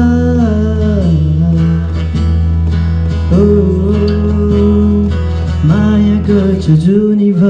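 A young man singing a Nepali love song in long held, gliding notes into a microphone while strumming an acoustic guitar.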